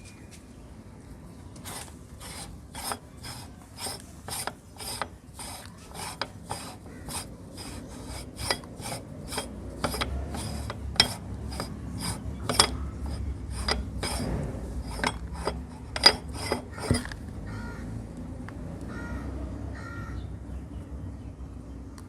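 Meat grinder crushing and grinding sweets: a regular series of crunching, rasping strokes, about two a second, that stops about three-quarters of the way through.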